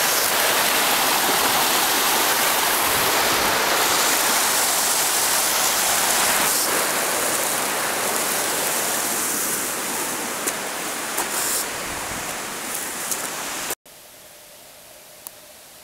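Steady rushing of water, easing slightly towards the end with a few small clicks, then cut off suddenly about fourteen seconds in, leaving only a faint steady hiss.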